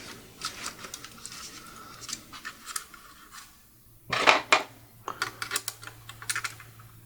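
Small clicks and scrapes of a screwdriver and small metal parts being worked on an opened laptop's chassis, with a louder run of clicks about four seconds in.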